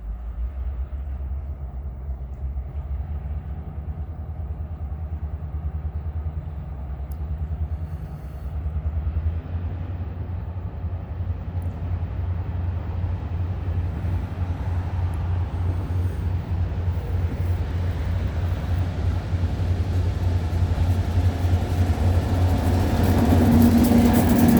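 Great Lakes Central Railroad diesel locomotive approaching, its engine working with a low, steady throbbing drone that grows louder throughout. Near the end a higher hum and a rising hiss join as the train draws close.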